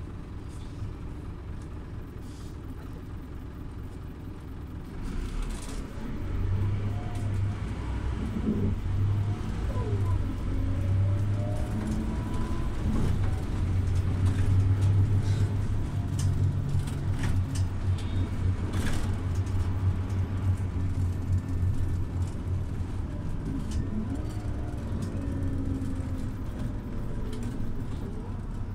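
Scania OmniLink city bus engine running with a low hum that swells from about five seconds in as the bus pulls away and gathers speed. It is loudest around the middle, then eases slightly while cruising.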